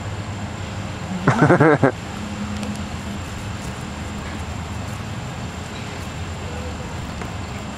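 A short, wavering vocal cry about a second in, lasting about half a second, over a steady low outdoor background hum.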